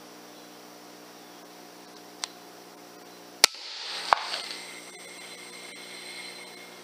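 An FX M3 .22 PCP air rifle fires with one sharp crack about three and a half seconds in, followed about two-thirds of a second later by a second sharp strike, the pellet hitting the can of water. A faint click comes a little over a second before the shot, and a steady electrical hum runs underneath.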